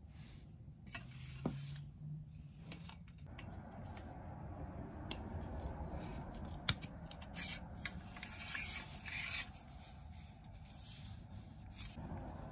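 A plastic ring fastener being slid and twisted along a steel flagpole, scraping and rubbing with scattered small clicks. The scraping comes in louder bursts in the second half.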